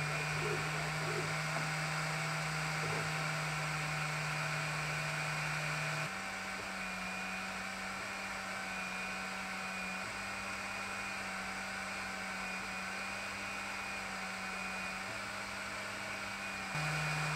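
Creality 10W Falcon laser module engraving stainless steel: a steady hum and hiss of its cooling fan and air-assist pump. About six seconds in the hum steps up slightly in pitch and gets a little quieter, and near the end it drops back.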